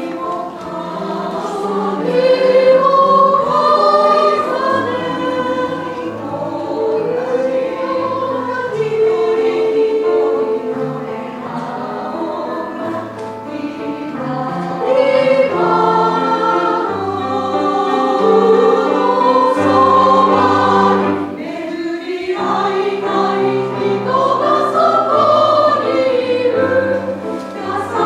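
Women's choir singing a piece in several parts with piano accompaniment, the piano holding low notes beneath the voices. The choir breaks off briefly for a breath about three-quarters of the way through, then sings on.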